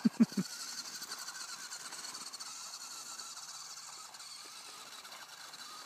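The battery-driven electric motor and gearbox of a 1:16 Tronico metal-kit RC Fendt 939 tractor whining steadily at full throttle as it drives through sand, slowly growing a little fainter. Three dull thumps right at the start.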